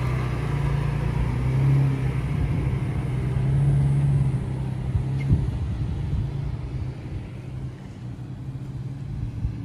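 Second-generation Nissan Xterra's 4.0-litre V6 running at low speed over sandy ruts, the throttle swelling twice in the first half. A single knock about five seconds in, then the engine fades as the truck pulls away.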